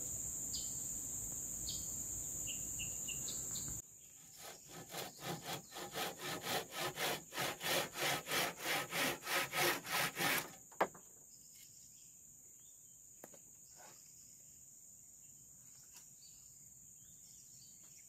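Hand saw cutting wood in a run of quick, even back-and-forth strokes that grow louder over about six seconds and end with a sharp knock. Before and after the sawing, insects buzz in a steady high drone.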